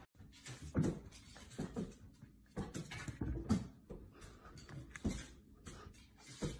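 A dog making short, irregular noises, mixed with a few knocks.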